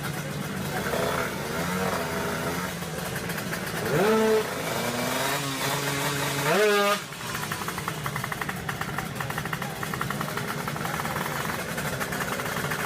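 Motorcycle engine revved twice in quick blips, the second climbing steeply and cutting off suddenly, then running on steadily.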